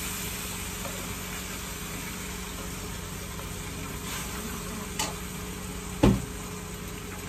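Onion and turmeric masala sizzling steadily in a pan on a gas stove. A faint click about five seconds in, then a loud knock a second later.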